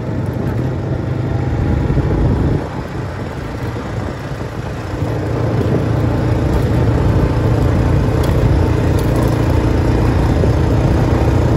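A vehicle driving on a gravel dirt road: the engine runs steadily under tyre and road noise. It eases off a little about two and a half seconds in and picks up again a couple of seconds later.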